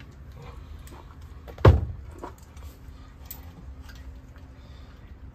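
A single loud clunk of a hand tool knocking against the engine a little under two seconds in, with faint clicks and rattles of tools around it.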